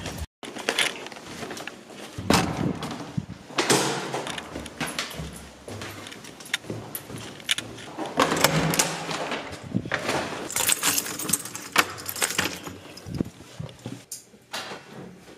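Keys jangling and irregular clicks, knocks and rustles of handling as a door is unlocked and opened.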